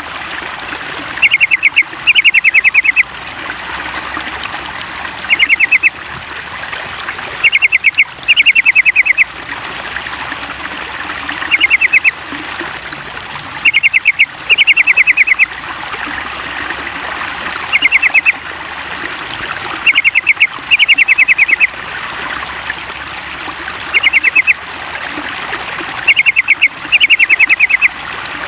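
Looped yellow-vented bulbul call recording used as a lure to set a caged bird singing: short clusters of rapid, quick-fire chirps, coming every couple of seconds in a regularly repeating pattern, over a steady trickle of running water.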